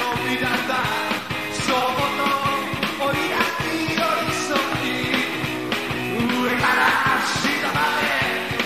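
Rock and roll band playing live, with a male singer over electric guitar, bass and a steady drum beat.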